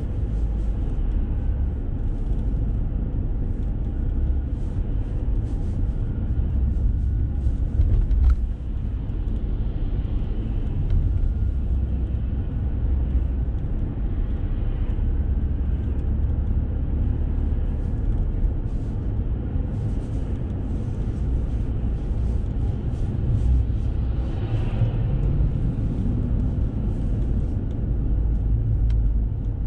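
Car driving along a city road, heard from inside the cabin: a steady low rumble of tyres and engine, with a brief knock about eight seconds in.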